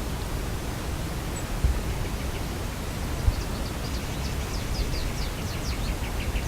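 Steady outdoor rushing noise with a low rumble and a couple of soft thumps, and from about halfway a small bird singing a quick series of short, high, sliding notes.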